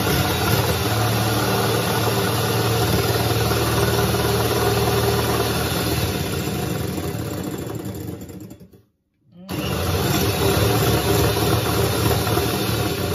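Electric hand mixer running, its beaters whipping egg whites in a glass bowl. The motor stops for under a second about nine seconds in, then starts again.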